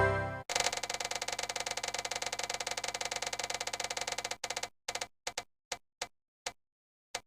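Music cutting off about half a second in, then a fast run of clicks that slows into a few single clicks, spaced further and further apart, and stops.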